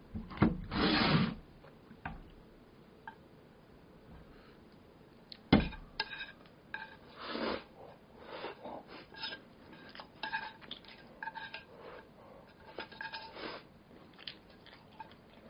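A metal utensil clinking and scraping against a dish of noodles while eating. There are a couple of sharp knocks, short scraping noises, and a run of light ringing clinks in the second half.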